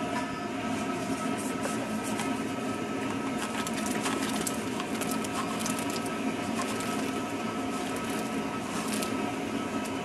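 Propane burner running steadily under a keg boil kettle, with the crackle of wort at a rolling boil.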